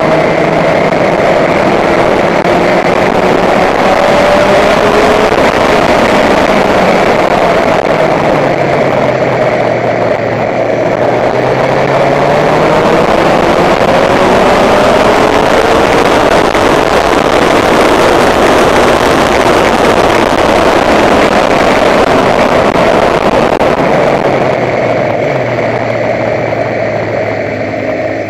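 Honda motorcycle engine running under way, its revs rising and falling several times through the bends and gear changes, over a steady rush of wind and road noise.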